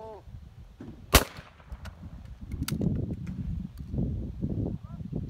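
A single shotgun shot at a trap target about a second in, loud and sharp. Several much fainter sharp cracks follow later.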